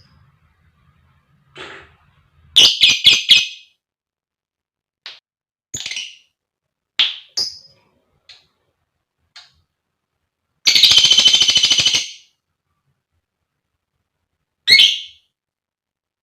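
Female lovebird calling: a quick run of shrill chirps, then scattered single chirps, then a rapid chattering trill lasting about a second and a half, and one last chirp near the end.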